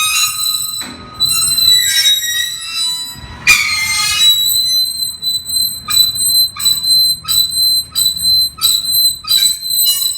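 A loud, shrill squeal held on one high pitch. Harsh rasping bursts come and go over it, and from about halfway it pulses in a steady beat of roughly three strokes every two seconds.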